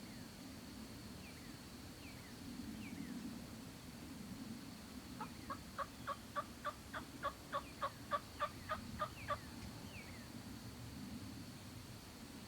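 Wild turkey yelping: a long, evenly paced series of about seventeen yelps, roughly four a second, lasting about four seconds. A few faint, short falling chirps from small birds are heard around it.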